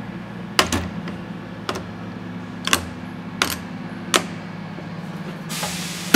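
Steel angular contact bearings set down one at a time on the metal plate of an SKF bearing heater, six separate clicks over a steady low hum. Near the end a short swish and then a loud clack as the heater's hinged lid is shut.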